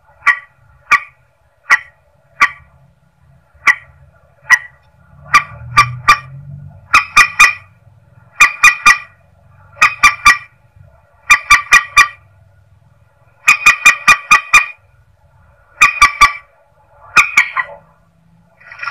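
Recorded lure call of the mandar sawah, a rail: short, sharp, clipped calls. For the first few seconds they come singly, about two-thirds of a second apart, then in quick runs of three to five.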